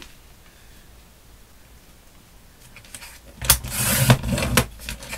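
Rotary paper trimmer's cutting head slid down its rail, slicing through a sheet of 200 gsm card. It starts about three and a half seconds in as a noisy scrape with several clicks and lasts over a second.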